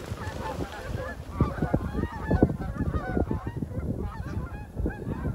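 A flock of Canada geese honking as they take off, with many overlapping calls. The rapid low beating of their wings runs underneath the calls and is loudest a couple of seconds in.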